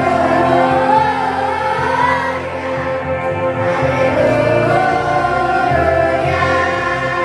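Children's choir singing, the melody rising and falling, over steady held accompaniment chords.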